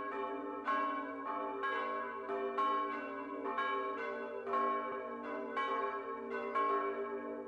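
Church bells ringing a peal, strike following strike about every half second, with the strongest strokes about once a second and each note ringing on into the next.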